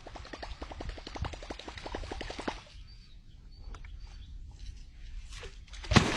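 Fishing reel clicking rapidly for about two and a half seconds, then a few scattered clicks, while fighting a big catfish; a loud splash of water comes at the very end.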